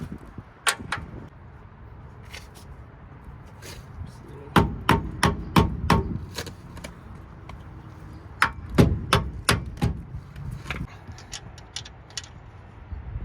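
Hammer blows on metal as a new lower control arm's pivot bolts are driven through into place: a single strike, then two quick runs of about five or six sharp strikes each.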